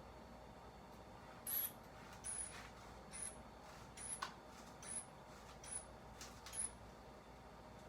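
Rubber hand bulb of a manual blood pressure cuff squeezed seven times, about one squeeze a second, each a short hiss of air with a slight squeak as the cuff is pumped up.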